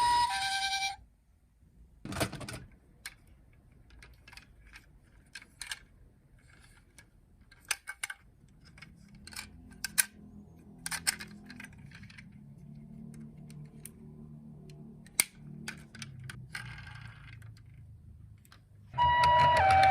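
A toy ambulance's electronic hi-lo siren cuts off about a second in, then scattered small clicks and taps of the plastic toy and its packaging being handled, with a faint low hum for a while in the middle. The siren starts again near the end.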